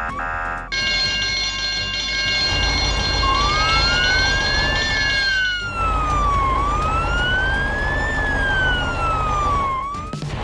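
Cartoon emergency-vehicle siren wailing, its pitch rising and falling slowly about every three seconds, starting about three seconds in. Underneath are a steady low vehicle rumble and held steady tones.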